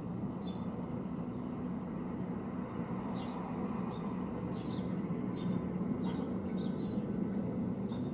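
Recorded outdoor soundscape played back in a room: scattered short, high bird chirps over a steady low rumble.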